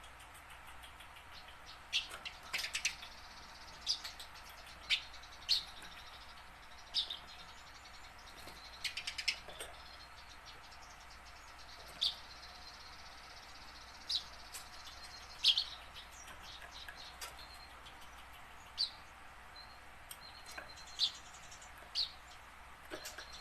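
Eurasian tree sparrow chirping: single short, sharp chirps every second or two, now and then a quick run of three or four.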